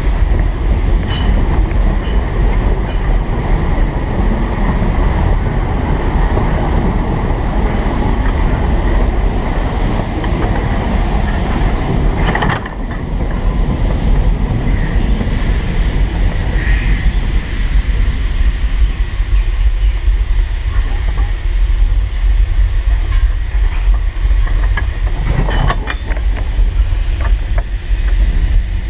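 Small 1915 Baldwin steam locomotive train running along its track: a steady, loud rumble from the moving train, with a couple of sharp knocks partway through and near the end.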